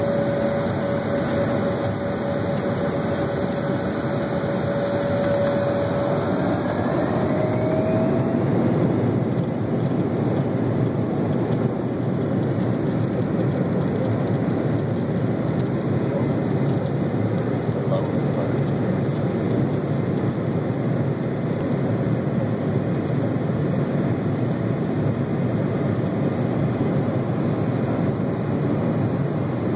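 Jet airliner's turbofan engines heard from inside the cabin: a steady whine rises in pitch about seven seconds in as the engines spool up to takeoff thrust. It then gives way to a steady rush of engine and air noise as the plane accelerates down the runway on its takeoff roll.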